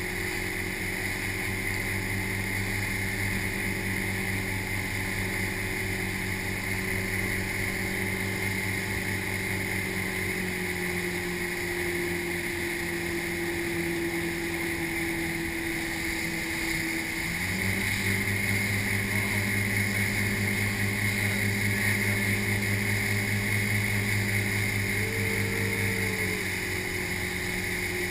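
Motorboat engine running steadily at speed while towing a water skier, over the constant rush of wake water and wind. About two-thirds of the way through, the engine note rises a little and gets louder for some eight seconds, then settles back to its earlier level.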